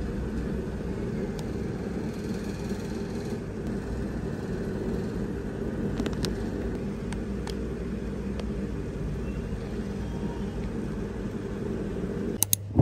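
A steady low hum with a few faint, scattered clicks. About half a second before the end there is a short, sharp burst of sound.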